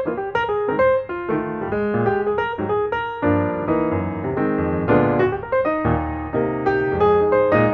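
Background piano music, a melody of many separate notes over lower chords that grow fuller about three seconds in.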